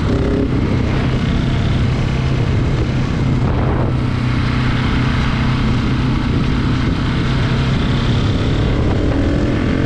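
KTM 690 single-cylinder motorcycle engine running steadily at cruising speed, with wind rushing over the microphone.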